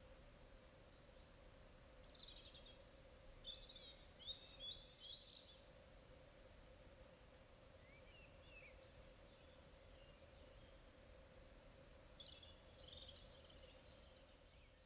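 Faint songbird song: short bursts of high chirps and warbles about three to five seconds in, again around eight seconds, and near the end, over a faint steady hum.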